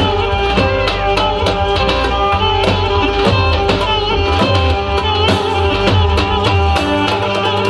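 Lively Turkish folk dance music: a melody instrument playing over frequent hand-drum strokes.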